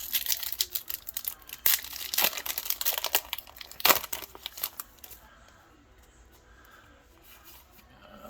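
Foil trading-card booster pack crinkling and being torn open: a dense crackle for about five seconds, sharpest near four seconds in, then only faint handling.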